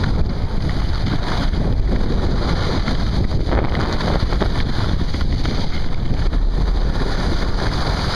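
Steady rush of wind buffeting the microphone of a skier moving downhill, mixed with the hiss and scrape of skis sliding on snow.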